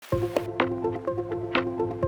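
Background music with a steady beat: sustained keyboard-like notes over a bass line, with a percussive hit about every half second.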